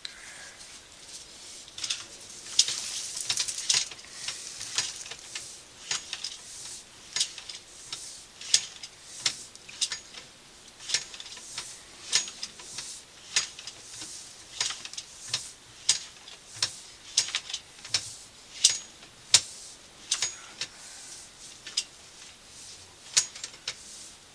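Sewer inspection camera's push cable being fed out from its reel: irregular sharp clicks and ticks, a quick cluster about two to four seconds in, then roughly one or two a second.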